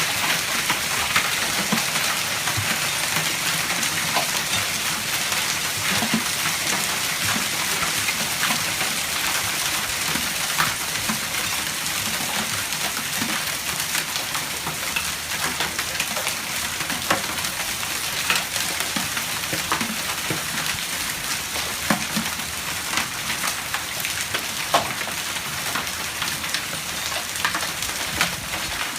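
Large hail and heavy rain coming down: a steady hiss of rain with many separate sharp clacks of hailstones hitting, scattered irregularly throughout.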